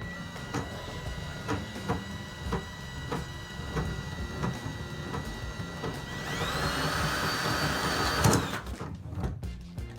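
Drill-powered drain snake running with a steady whine and a regular knock about twice a second; about six seconds in the motor speeds up to a higher whine, then stops abruptly about two seconds later.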